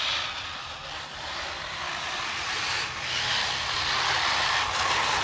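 Electric RC trucks running on a dirt track: the whine of their motors and their tyres on loose dirt, swelling and easing as they accelerate and back off.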